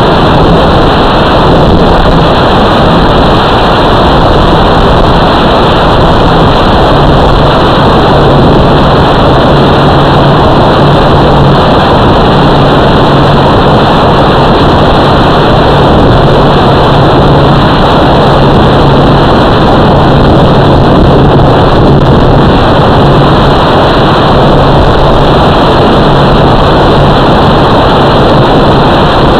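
Radio-controlled model's motor and wind noise picked up by its onboard camera microphone: a loud, steady rushing noise with a low hum that comes and goes.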